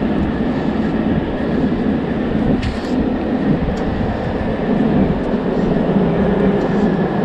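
Steady low rumble of street and rail background noise while walking, with a brief hiss about two and a half seconds in.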